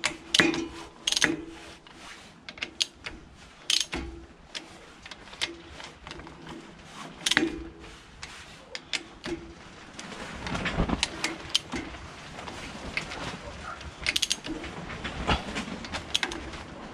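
Ratchet wrench clicking in short, irregular runs as bolts are tightened on a brass power-sprayer pump head, with a few metal clinks.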